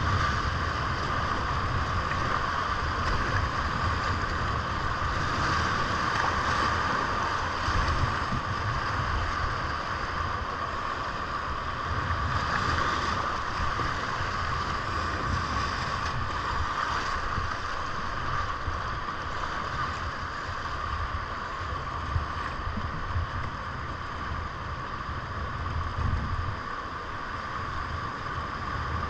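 Rushing whitewater of a creek rapid at high water, heard from a kayak in the middle of it: a steady rush with an uneven low rumble underneath.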